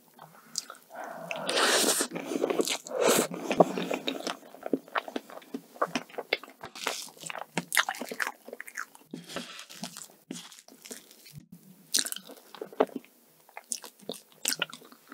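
Close-miked eating of soft whipped-cream sponge cake: wet chewing and mouth sounds. A long, dense stretch of loud chewing comes in the first few seconds, then a run of short, sticky lip smacks and clicks.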